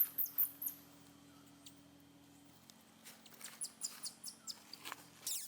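Newborn baby monkey squeaking and crying in short high-pitched calls: a quick cluster right at the start, then a run of short squeaks from about three seconds in, ending with a falling squeal near the end.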